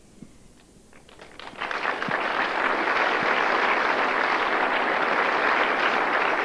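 Audience applause: a few scattered claps about a second in, swelling within a second into steady clapping from a large crowd.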